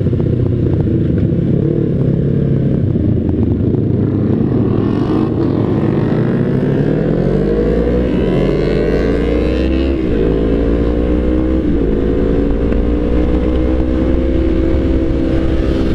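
Yamaha R25 sport bike's engine accelerating under the rider: its pitch climbs over a few seconds, drops briefly twice as it shifts up, then holds steady at cruising speed. Wind noise runs underneath.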